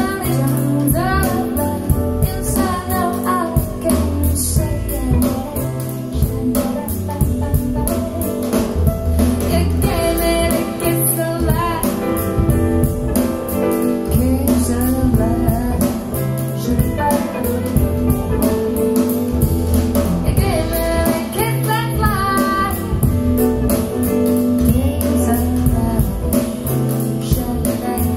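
Jazzy song with a woman singing over guitar, bass and drums, played back through CSS Audio Torii bookshelf speakers and picked up by stationary room microphones about 8 ft away.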